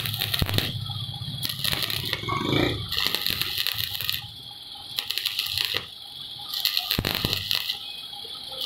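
Electric arc welding crackling and sizzling in runs of about a second with short breaks between, laying weld onto a worn plastic injection-molding screw to build it back to size.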